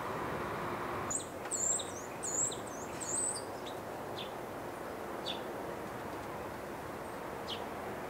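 Small birds calling: a quick run of high chirps from about a second in to about three and a half seconds, then a few single thin high notes spaced out, over steady outdoor background noise.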